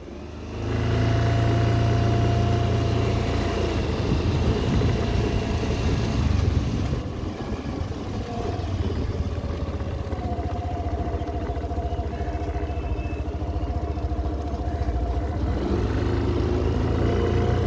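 Suzuki Avenis 125 scooter's single-cylinder engine picks up about half a second in as the scooter pulls away from a stop. It then runs at low speed over a rough dirt track, easing off in the middle and picking up again later.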